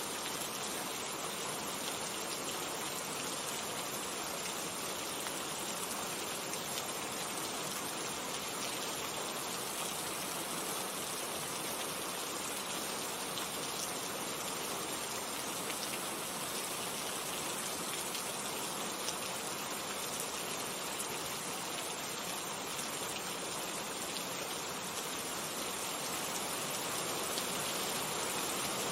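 Steady rain falling, a dense even hiss of many drops with fine patters throughout.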